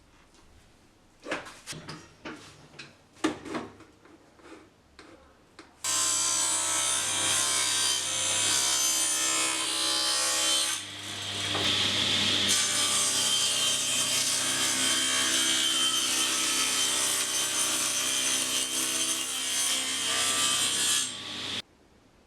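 A few scattered knocks and clatters of wood being handled, then a table saw runs and cuts wood for about fifteen seconds, dipping briefly partway through, before the sound stops abruptly.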